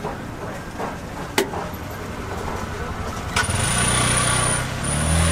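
Busy street-market noise with a sharp clack about a second in. Then, from about three seconds in, a motor vehicle's engine running close by, with a steady high whine over it.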